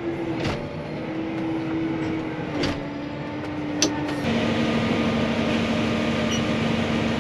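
Vehicle engine and cab fan running steadily, heard from inside the cab, with a few short clicks. About four seconds in the hum drops to a lower pitch and gets louder.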